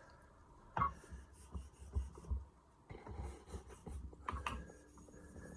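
Atoma 400 diamond plate scraped across the edges of a whetstone in short rasping strokes, chamfering off the sharp corners, with a few sharp knocks of plate against stone.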